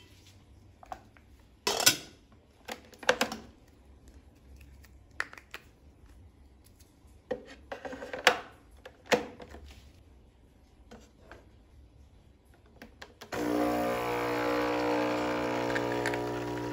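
Clicks and knocks of a capsule coffee machine being loaded and a mug being set under its spout. About three-quarters of the way in, the machine's pump starts suddenly and runs with a steady hum as it begins brewing.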